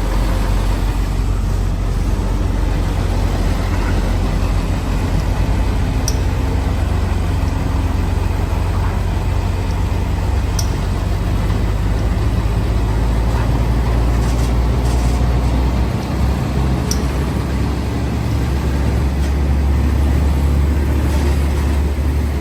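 Heavy diesel truck engine running under load, a steady low drone; about two-thirds of the way in its note shifts up a little.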